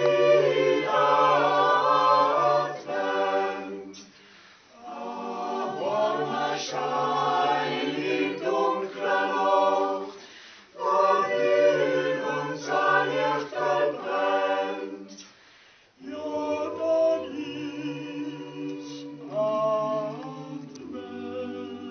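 Mixed church choir singing a Christmas carol a cappella, in several phrases with short pauses between them.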